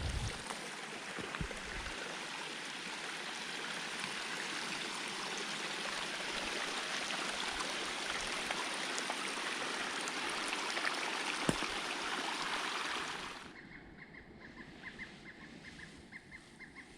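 Steady rushing of running water, like a stream, that cuts off abruptly about thirteen seconds in to a much quieter background with faint rapid ticking.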